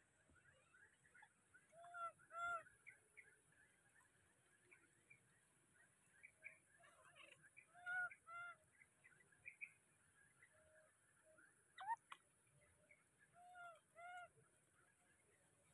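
A baby monkey calling: short arched notes with a clear pitch, in pairs, three times a few seconds apart. Fainter chirps come between them, one quick rising squeak near the end, over a steady high hiss.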